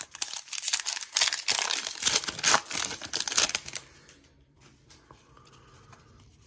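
Foil trading-card pack wrapper being torn open and crinkled, a dense run of crackling that stops about four seconds in.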